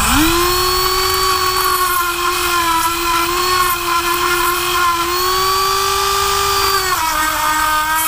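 Dremel rotary tool spinning up and running at a steady high whine with an abrasive drum bit, grinding corrosion out of the bore of a car battery terminal clamp. Its pitch drops a little near the end.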